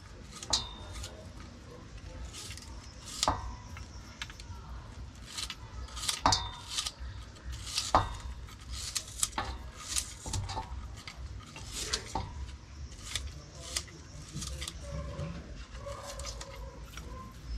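Kitchen utensils and dishes clinking and knocking while food is prepared: irregular sharp clicks and clatter, with a few louder knocks in the first half.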